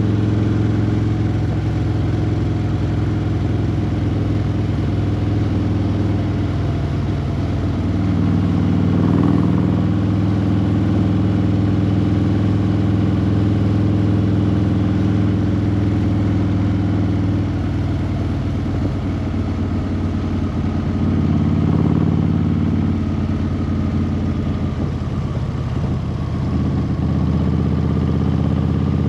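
A vehicle engine running steadily, its pitch shifting up or down a few times.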